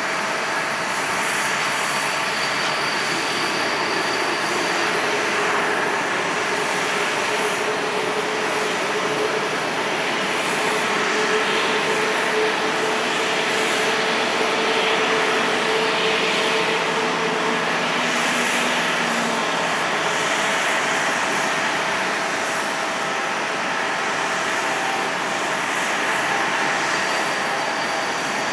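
Jet airliner engines running: a steady rush of noise with a thin high whine and a mid tone that rises slightly partway through.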